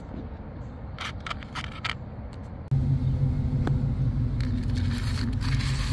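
Tumbled stones clicking and scraping against a perforated metal sieve tray as they are handled. From about three seconds in, a steady low hum comes in suddenly and is the loudest sound, with more stone clicks over it.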